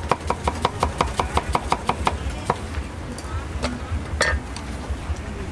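Cleaver chopping rapidly on a thick round wooden chopping board, about five strokes a second, stopping about two seconds in. A single louder knock comes about four seconds in.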